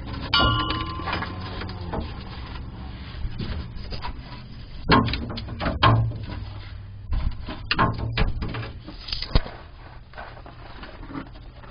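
Metal clanks, knocks and scraping as a steel fuel-tank strap under a GMC Jimmy is pushed up and worked free. A ringing clank comes near the start, with several louder knocks in the middle and a sharp one late on.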